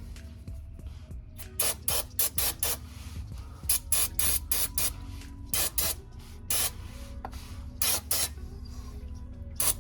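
A series of about fifteen short hissing spray bursts, coming in irregular clusters.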